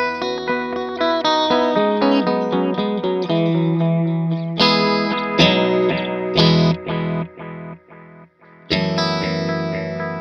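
Electric guitar played with light overdrive through a Sonicake Echo Rain delay pedal: a run of quickly picked notes and chords with soft echo repeats trailing behind. Near the end the playing fades almost to nothing, then a chord is struck and left to ring.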